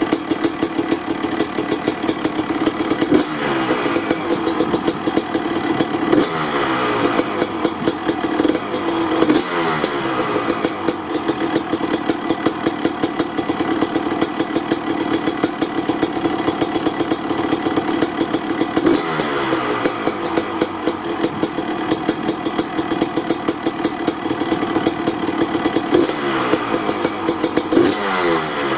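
1995 Honda CR250's single-cylinder two-stroke engine running at a fast, crackling idle, still warming up after a cold start. Several short throttle blips lift the revs, and each one falls back to idle.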